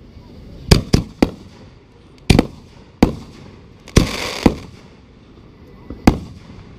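Aerial fireworks bursting overhead: about eight sharp bangs at uneven gaps. About four seconds in, one burst is followed by a half-second hissing crackle.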